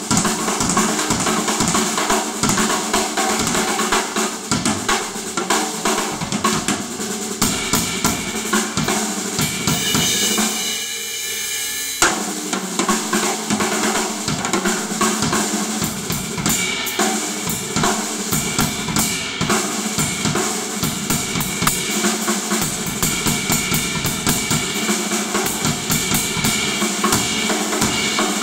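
Yamaha drum kit played solo, with dense strokes on snare, bass drum and cymbals. About ten seconds in, the drums drop out for two seconds of ringing cymbal wash, then a sharp hit brings the full kit back.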